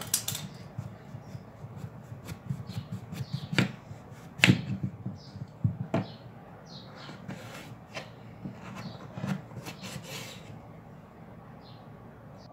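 Kitchen knife cutting a peeled raw mango on a bamboo cutting board: the blade rasps through the firm flesh, with irregular sharp knocks as it meets the board, the loudest about four and a half seconds in.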